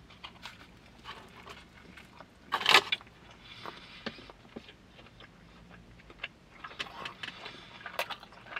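A person chewing a mouthful of sandwich with soft, scattered mouth clicks and smacks, and a louder short noisy sound a little under three seconds in.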